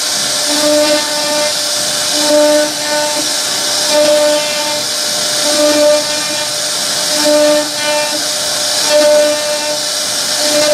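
CNC wood router carving a decorative pattern into a wooden panel: a steady high cutting hiss from the spindle, with a hum that comes and goes every second or so as the head moves along its path.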